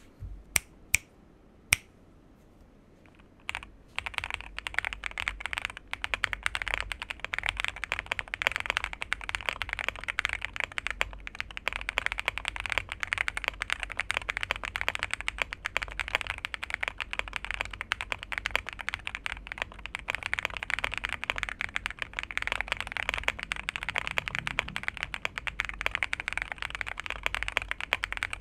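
Monsgeek M1W mechanical keyboard with Akko Cream Yellow Pro linear switches being typed on, giving a thocky keystroke sound. A few single loud clicks come in the first two seconds, then fast, continuous typing starts about four seconds in.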